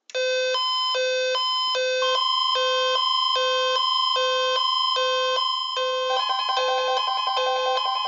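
Weather radio receivers sounding their alert alarms for a hurricane watch: a loud electronic beep alternating between two pitches, repeating steadily. A steady tone joins about two seconds in, and a second radio adds a faster beeping pattern about six seconds in.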